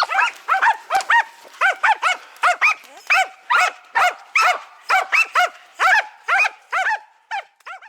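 Karelian-Finnish laikas barking fast and high-pitched at game, the rapid steady baying of hunting spitz dogs, about three barks a second. Each bark rises and falls in pitch, and the last few are fainter.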